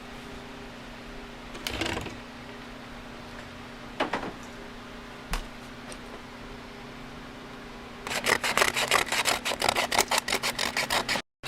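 Plastic bumper cover being scuffed by hand with 80-grit sandpaper around a crack, roughing up the surface before repair: a few single strokes, then fast back-and-forth sanding, about eight strokes a second, over the last three seconds.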